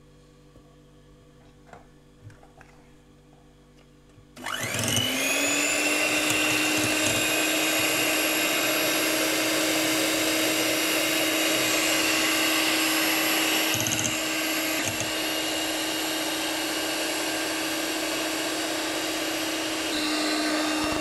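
Faint clicks at first. About four seconds in, an electric hand mixer switches on: its motor spins up quickly, then runs steadily as its beaters whip cream cheese and whipping cream together.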